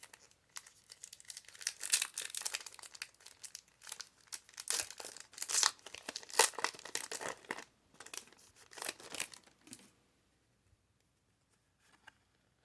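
Foil Pokémon booster pack wrapper being torn open and crinkled in repeated crackly bursts. It stops about ten seconds in, leaving only a couple of faint clicks near the end.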